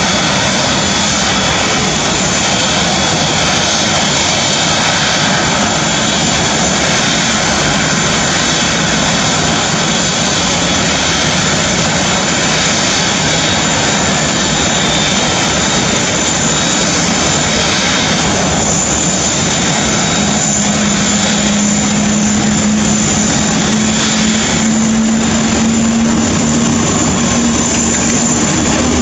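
Airbus A380's four turbofan engines running steadily with a loud, even rush and a thin high whine. About two-thirds of the way in, a low hum comes up and rises slightly in pitch.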